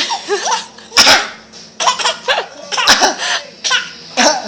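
A child laughing and giggling between a few sharp, forced coughs, imitating a man's cough.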